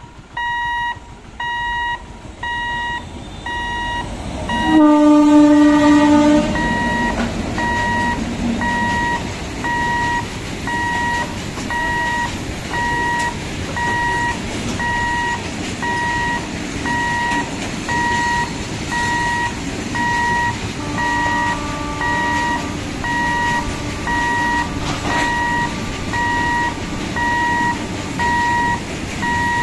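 An electric locomotive's horn blasts loudly about five seconds in, then the freight train's open wagons roll past with a steady rumble and clatter. A level-crossing warning beeper sounds throughout, about one beep every second and a half, and a fainter horn sounds for several seconds past the twenty-second mark.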